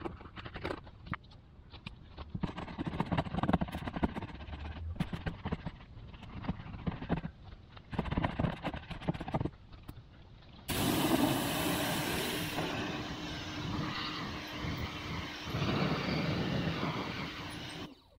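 Tire being scrubbed with a brush in quick, irregular strokes. About ten seconds in, it changes suddenly to a pressure washer spraying: a steady loud hiss of water over a low, even hum.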